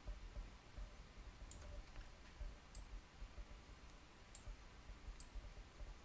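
Near silence with a few faint, sharp clicks from a computer mouse being clicked.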